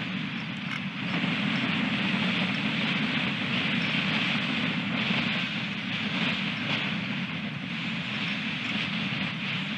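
Strong wind blowing over the osprey nest camera's microphone: a steady rumble and hiss that surges a little and never drops away.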